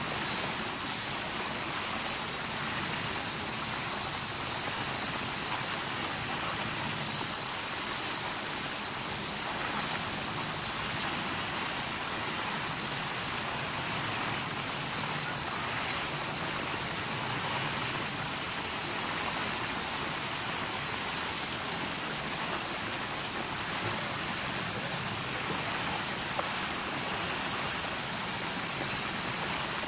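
Summer cicada chorus: a steady, high-pitched drone with no break, over a wash of hiss.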